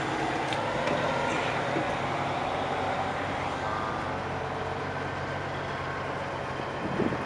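Tilt-tray truck's engine running steadily at low speed as the truck drives slowly past, a steady low hum.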